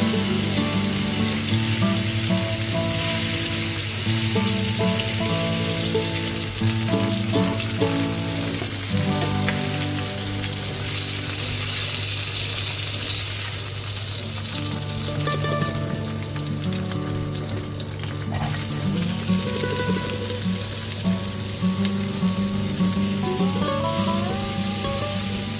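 Chicken thighs sizzling in hot oil in a frying pan as they are turned and lifted out with tongs, then sliced onions frying near the end. Background music plays throughout.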